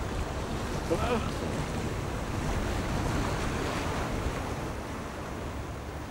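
Water rushing and splashing along the hull of a sailing yacht under way, with wind buffeting the microphone as a low rumble.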